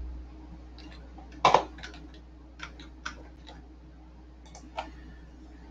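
About ten irregular clicks and light taps, the loudest about one and a half seconds in, over a steady low hum.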